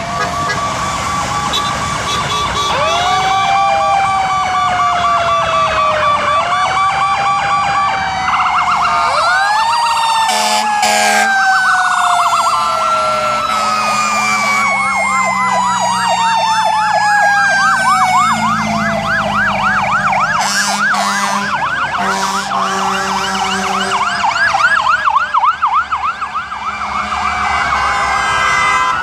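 Several emergency-vehicle sirens sounding at once as a convoy of fire trucks and police cars passes: slow rising and falling wails overlapping, with a fast yelping pattern through the middle stretch. The low sound of a heavy engine runs under the sirens as the fire truck goes by.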